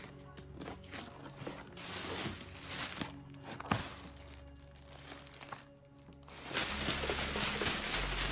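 Cardboard box flaps and plastic air-pillow packing being handled, with scattered rustles, crinkles and clicks, then a louder stretch of plastic crinkling for the last couple of seconds as the packing is pulled out. Background music runs underneath.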